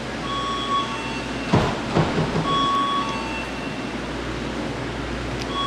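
Electronic door entry alarm sounding a two-note chime, a higher note then a lower one, repeating about every two and a half seconds, set off by someone standing in the doorway. A single thump about a second and a half in.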